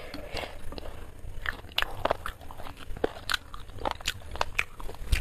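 A person chewing a mouthful of chicken biryani close to the microphone, with irregular lip smacks and mouth clicks.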